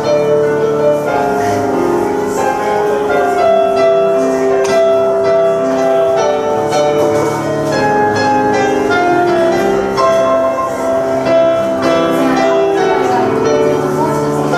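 Solo piano improvisation: a melody of ringing notes over held chords, each note sustained a second or more.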